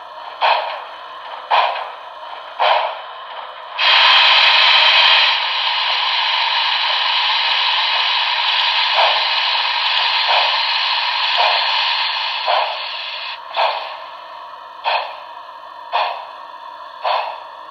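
Paragon 4 sound system of a Broadway Limited Santa Fe Blue Goose 4-6-4 model steam locomotive running at speed step 2: slow exhaust chuffs about one a second. About four seconds in a loud steam hiss starts and runs for about ten seconds over the chuffs, then stops, leaving the chuffs alone.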